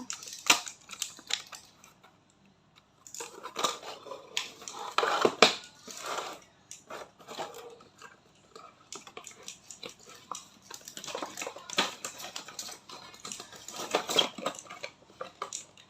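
Irregular clicks, taps and light rattling of hard plastic being handled, a remote-control toy and its controller being fiddled with because the ant toy will not work. There is a short near-silent pause about two seconds in.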